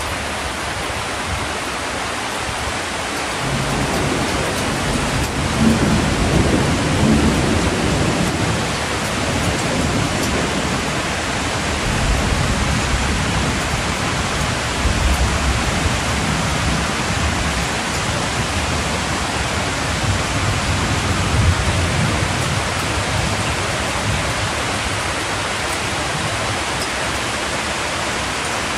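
Heavy hailstorm with rain pouring down, a dense steady hiss, with low rumbles swelling now and then.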